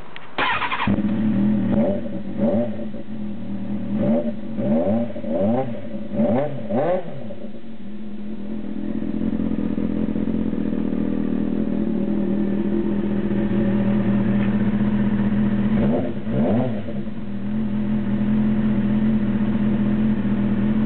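Kawasaki ZX-6R Ninja inline-four engine, heard at its cut-down, resealed stock silencer. It fires up about half a second in, takes a run of quick throttle blips over the next several seconds, then settles into a steady idle. It is blipped twice more near the end.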